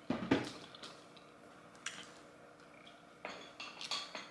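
Light clinks and knocks of dishes or cutlery being handled during a meal: a few sharp knocks at the start, a single one about two seconds in, and a quick run of clicks near the end.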